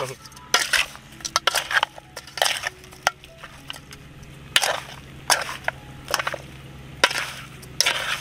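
A metal spoon and chopsticks tossing chopped raw chicken in marinade in an aluminium bowl: irregular clinks and scrapes against the bowl, mixed with the wet squishing of the meat.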